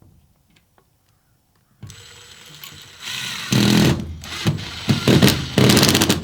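A power driver tightening a bolt and washer into a greenhouse corner bracket. The motor comes in with a faint whine about two seconds in, then runs under load in loud, repeated short bursts.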